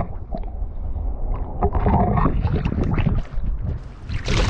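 Wind buffeting the microphone as a loud, steady low rumble, with a brief burst of water splashing near the end as a trout is netted.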